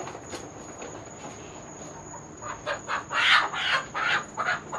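Chicken squawking in alarm: a quick run of loud, harsh squawks starting about halfway through, as the bird is disturbed from its roost.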